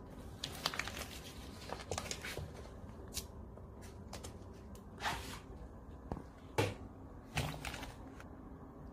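Handling sounds: scattered light clicks and rustles, with three louder brushing scrapes in the second half over a low steady hum.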